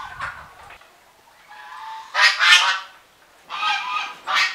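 Domestic geese honking: loud, harsh calls come in quick groups from about two seconds in, after a fainter call at the start.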